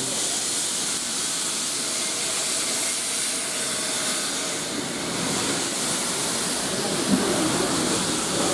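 Steam from a steam-hauled train hissing steadily as it blows along the platform beside the carriages, with a single short knock about seven seconds in.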